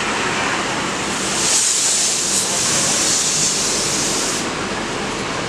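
Mercedes-Benz OH1626 coach moving off, with a loud hiss of compressed air that starts about a second in and stops sharply after about three seconds, over steady engine and terminal noise.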